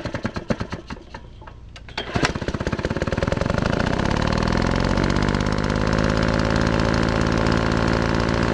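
A motor running with rapid, uneven knocking, then a sharp knock about two seconds in, after which it spins up, rising in pitch, and runs steadily at speed.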